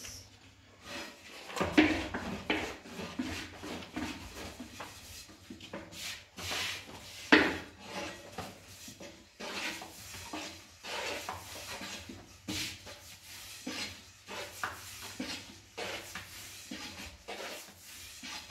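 Long thin wooden rolling pin rolling and rubbing over flatbread dough on a round wooden board, in irregular strokes. Now and then there is a sharper knock of wood on wood, loudest about two seconds and seven seconds in.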